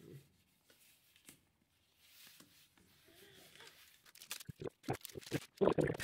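Rustling and crinkling of trading-card booster pack wrappers and cards being handled: quiet at first, then a quick run of sharp crinkles and clicks in the last two seconds.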